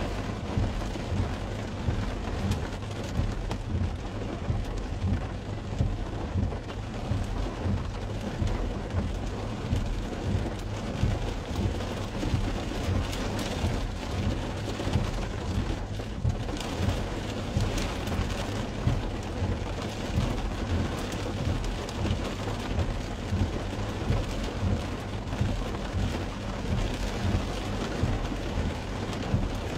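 Rain falling on a car's windscreen and roof, heard from inside the cabin as a dense steady hiss over a steady low rumble, swelling slightly about once a second.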